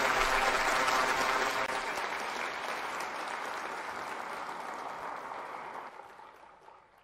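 Applause from a roomful of people clapping together, loud at first, then gradually thinning and dying out near the end.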